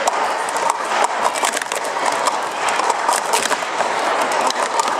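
Plastic sport-stacking cups clattering as they are rapidly stacked up and down through a Cycle sequence: a dense, uneven run of quick clicks and clacks.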